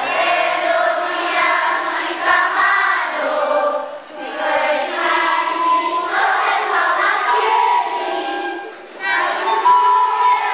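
A group of children singing together in chorus, in phrases with short breaks about four and nine seconds in.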